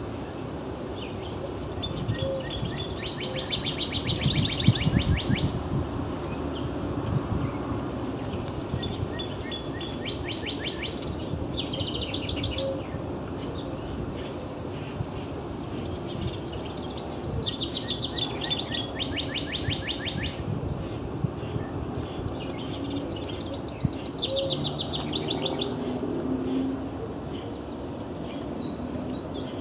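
A northern cardinal and a house wren singing: four song phrases of fast trilled notes, roughly one every seven seconds, each lasting two to three seconds.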